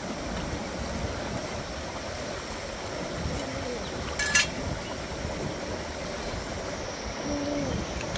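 Steady rush of a rocky stream running past, with a short sharp rasp about four seconds in as the large oyster's shell is worked open with a knife and fingers.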